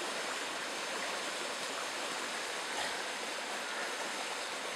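Shallow rocky stream running over stones: a steady hiss of flowing water, with a faint steady high tone above it.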